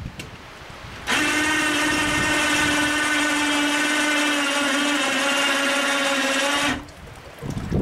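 Electric hoist motor whining steadily as it lifts an outboard motor up out of a test tank. It starts suddenly, drops slightly in pitch about five seconds in, and stops abruptly after about six seconds.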